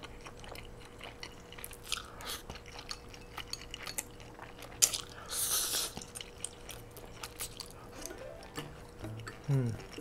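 Close-miked eating sounds: red-sauced udon noodles slurped into the mouth and chewed, with wet mouth clicks throughout and the loudest slurp about five seconds in.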